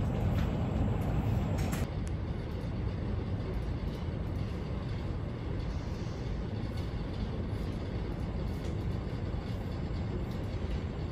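Steady low background rumble of room ambience, with a few faint laptop key clicks in the first two seconds.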